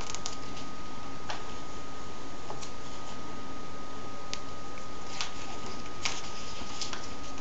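Comic book pages being turned and handled by hand: several short paper crackles and ticks over a steady background hiss with a thin, constant whine.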